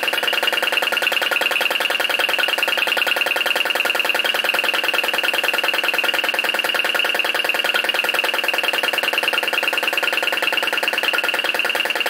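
Flame-licker vacuum engine running at a fast, steady speed, its flame-gulping valve and piston giving a rapid, even pulsing beat.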